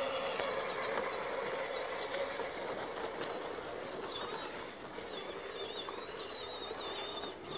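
Child's battery-powered ride-on toy Jeep driving across a lawn, its electric motor giving a thin high whine that wavers in pitch and drops out for a few seconds partway through, over a steady outdoor hiss.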